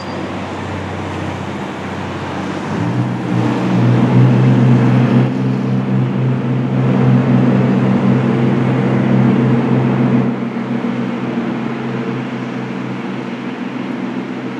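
Fireboat's engine running with a steady low drone, growing louder as it throttles up about three seconds in and easing off again about ten seconds in.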